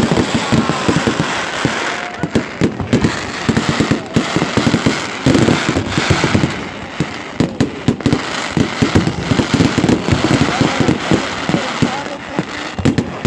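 Aerial fireworks going off in a rapid, near-continuous barrage of bangs and crackles.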